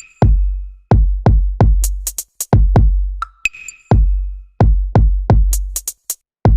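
Electronic music with a drum-machine beat: deep kick drums, each with a long low tail, fast runs of hi-hat ticks, and a couple of short high synth notes.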